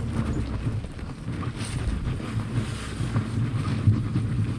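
Car engine running under load as the car is backed out, heard as a low rumble mixed with wind buffeting the microphone.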